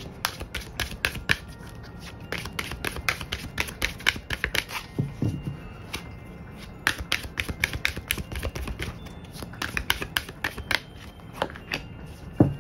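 Tarot cards being shuffled by hand: quick runs of crisp card flicks and slaps in two long bursts with a short pause between them. There is a soft thump about five seconds in and a louder one near the end.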